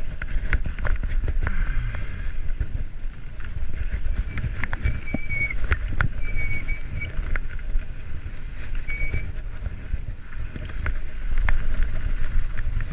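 Wind rumbling on the microphone of a camera riding along on a bicycle, with road noise and scattered clicks. A few short high-pitched squeaks come around the middle.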